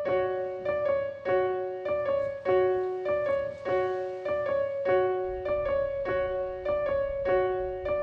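Piano music: a steady, repeating figure of single notes, one about every half second, over a held middle note.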